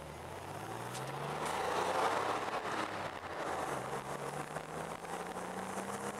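Porsche 911 Carrera 2S's air-cooled flat-six accelerating through the gears, heard from inside the cabin. The engine note climbs, drops at an upshift about three and a half seconds in, then climbs again in the next gear.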